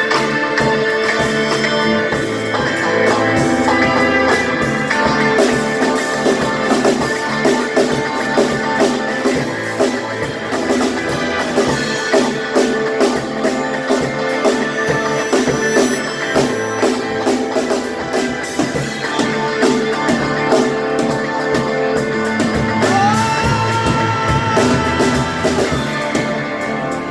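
Live rock band playing an instrumental passage: electric guitar and drum kit, loud and steady, with no vocals.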